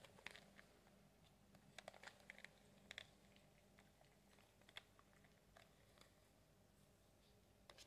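Faint, scattered small clicks and rattles of jewelry (necklaces, bracelets, a ring) being handled and put back into a container.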